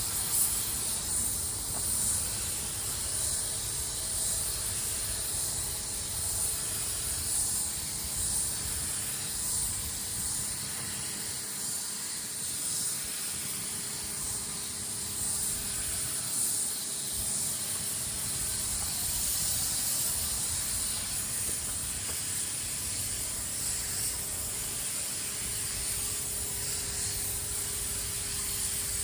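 Compressed-air paint spray gun hissing steadily as it sprays primer, fed straight from the compressor tank without a pressure regulator.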